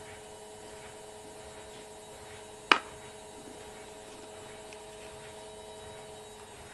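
A steady electrical hum with a couple of fixed tones, broken by one sharp click about two and a half seconds in.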